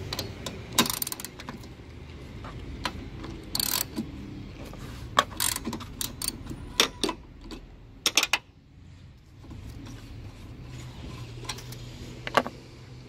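Hand socket ratchet clicking irregularly as a 14 mm socket is worked on nuts, with sharp metal clicks and clinks of the tool.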